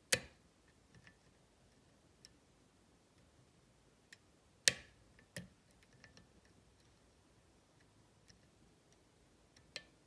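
Lock picks working a Kwikset SmartKey Gen 1/2 cylinder, which has false-gated sliders and a sidebar: a few scattered sharp metal clicks and small ticks from the pick and tension tool in the keyway, loudest near the start, about halfway and just before the end.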